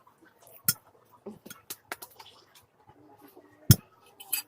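Eating sounds of someone eating spaghetti: scattered short, sharp clicks and smacks of utensils and mouth, the loudest a little before the end.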